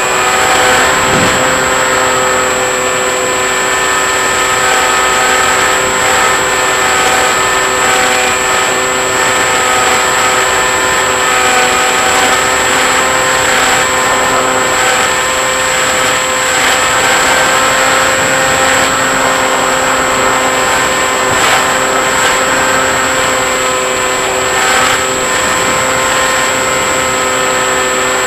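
Model aeroplane's motor and propeller running steadily, heard from the plane's onboard camera: a steady whine of several pitches with wind rushing over the microphone and a thin high tone above.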